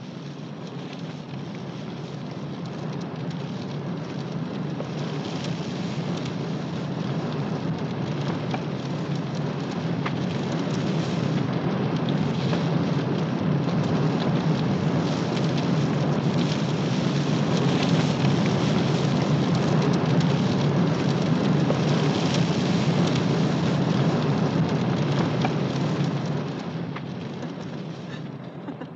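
A continuous rushing, rumbling noise, like wind or fire, that swells slowly for about twenty seconds and then dies away near the end.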